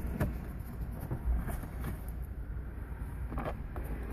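Low steady rumble of a car's engine running, with a few short clicks and knocks.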